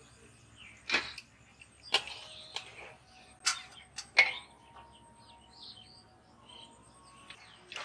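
Metal spoon knocking and scraping against a steel bowl as boiled rice is scooped out for layering, a series of sharp clinks in the first half, then fewer and softer.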